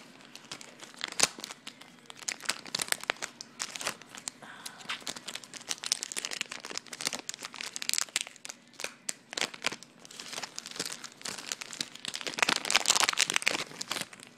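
A foil Pokémon trading-card booster pack being crinkled and torn open by hand: irregular crackling rustles and sharp crinkles, busiest about six to eight seconds in and again near the end. The pack is hard to get open and ends up ripped.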